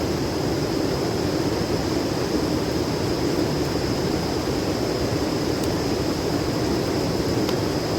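Steady rush of a mountain river flowing over rocks, with a faint steady high tone above it.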